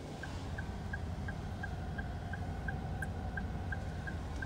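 Perodua Aruz hazard warning lights ticking, short even clicks about three a second, over a steady low hum.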